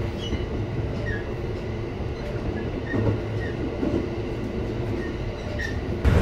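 Cabin noise of a local electric train running: a steady low rumble from the wheels and running gear, with a few short high squeaks and a couple of knocks about three to four seconds in.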